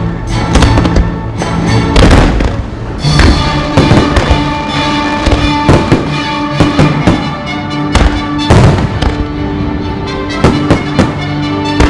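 Fireworks going off in many bangs at uneven intervals over loud music from the show's soundtrack.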